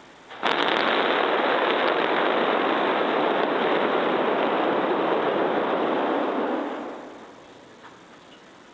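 Starship Super Heavy booster's Raptor engines firing in a static fire test, 31 of its 33 methane-fueled engines lit. The sound comes in abruptly about half a second in with a few sharp cracks, holds as a loud, even rush of noise for about six seconds, then fades out as the engines shut down.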